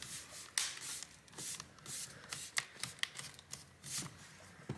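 Bottom cover of an HP Envy 13-ag laptop being pressed down along its edge, its clips snapping into place: about a dozen sharp, irregular clicks and light crunches.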